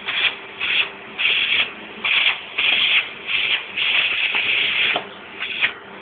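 Vacuum cleaner nozzle worked over a laptop, its suction hissing in irregular bursts of a fraction of a second to about a second as it moves, over a faint steady hum.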